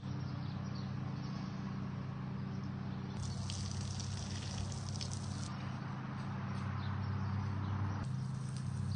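A stream of water splashing onto a tree trunk and the ground for about two seconds, standing in for a child peeing. A steady low hum runs underneath.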